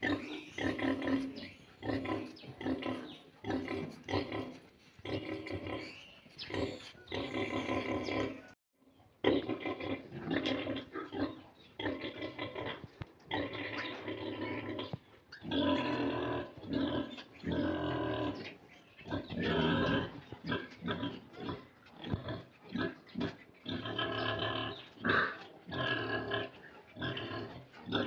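A nursing sow and her newborn piglets grunting and squealing while the piglets suckle, in a rapid run of short calls with a brief silence about eight and a half seconds in.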